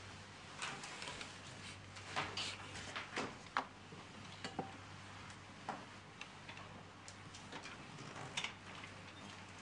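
Faint, irregular light clicks and knocks from people moving about a courtroom as the judges walk to the bench, over a low steady hum that fades out about halfway.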